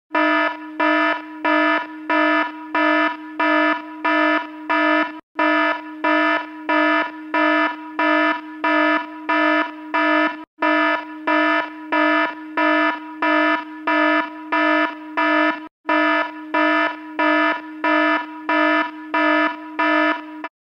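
Fire alarm sound effect: a pulsing alarm tone, about three pulses every two seconds. The loop breaks off for an instant every five seconds or so, and the sound stops near the end.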